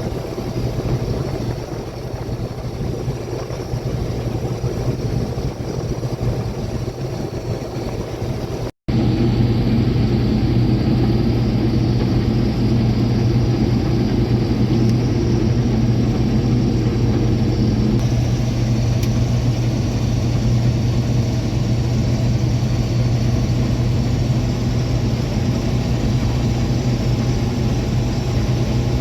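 Combine harvester running steadily under load while cutting soybeans, a constant low engine hum. The sound drops out briefly about nine seconds in and comes back slightly louder.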